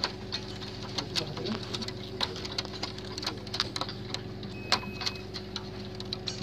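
Irregular light clicks and taps of fingers handling the plastic parts and ribbon cables of an opened inkjet printer, with one sharper click nearly five seconds in, over a steady low hum.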